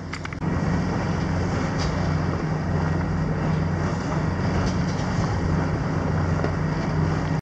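Sailboat's auxiliary engine running under way while motor sailing: a loud, steady low drone that stops abruptly at the end.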